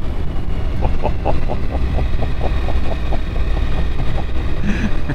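Motorcycle on the move: steady low engine rumble mixed with wind noise on the microphone. A quick run of short ticks, about four or five a second, comes through the middle for about three seconds.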